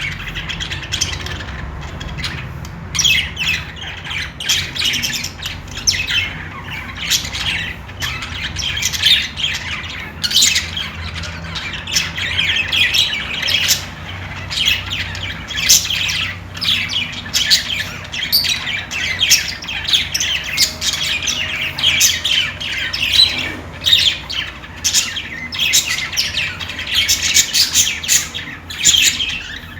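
Budgerigars chattering: a continuous stream of rapid chirps, warbles and squawks from several birds, with no pauses.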